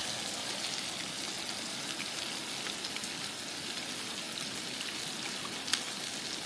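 Chicken frying in a pan on a camp stove: a steady sizzling hiss with small crackles and pops as it browns.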